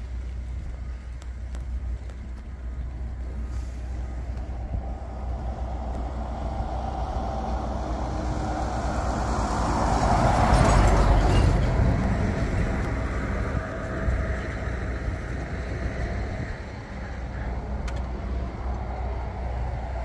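Road traffic: a steady low rumble, with a vehicle passing that grows louder to a peak about halfway through and then fades away.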